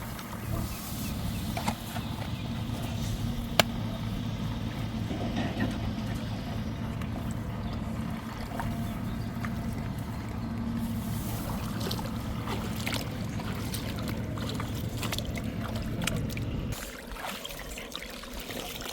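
A small engine running steadily, with some splashing and trickling water, until it cuts off about seventeen seconds in.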